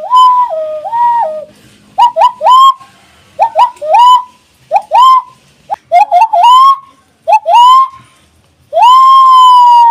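Hand whistle, made by blowing between pressed thumbs into clasped hands and moving the hands to bend the pitch, imitating sirens. It starts with a two-tone high–low wail, then gives a rapid string of short rising whoops, and near the end holds one long note that slowly falls.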